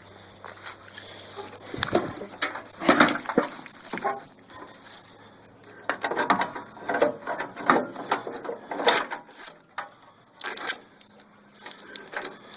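A riding mower's wiring harness being pulled through the chassis, scraping and rustling against the frame, with irregular clicks and knocks.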